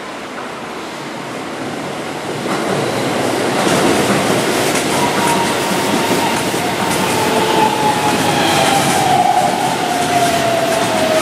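Keihan 13000 series electric commuter train running past on curved track, its wheels clicking over rail joints, louder from about three seconds in. From about five seconds in a steady whine slowly falls in pitch.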